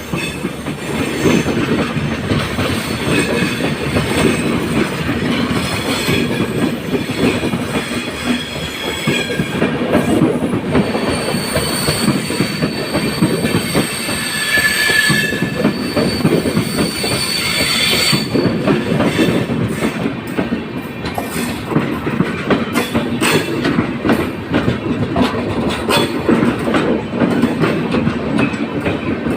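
Express train hauled by a WAP7 electric locomotive rolling past, its wheels rumbling steadily on the track. A high, steady wheel squeal rings through the middle, and sharp clickety-clack beats from the wheels crossing rail joints come thick in the later part.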